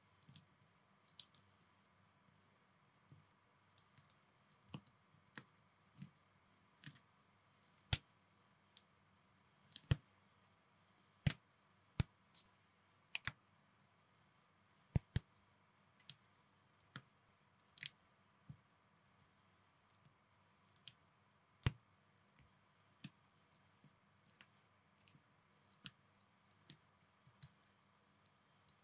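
Plastic building bricks clicking as they are pressed together and handled: sharp, irregular clicks, a few a second, with short gaps between.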